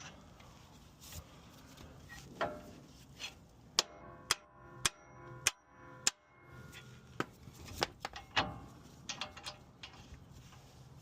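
Sharp metal-on-metal knocks: five strong strikes about half a second apart, each ringing briefly, then a few lighter clinks.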